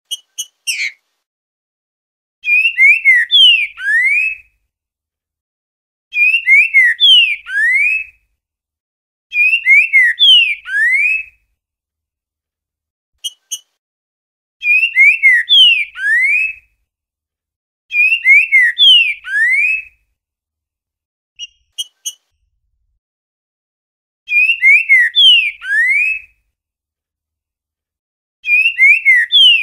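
Green-winged saltator (trinca-ferro) singing its 'boiadeiro' song: a phrase of several clear whistled notes sliding down and up, repeated about every three to four seconds, with brief sharp call notes in a few of the gaps.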